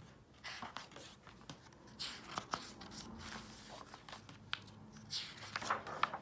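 Pages of a paperback picture book being opened and turned by hand: short paper swishes and rustles with small clicks, the loudest around two seconds in and again near the end.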